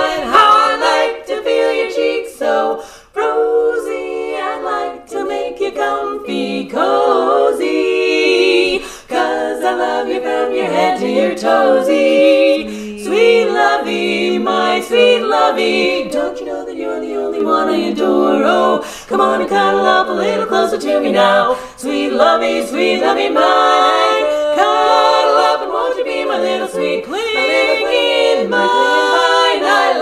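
Women's barbershop quartet singing a cappella in close four-part harmony, with brief breaks between phrases.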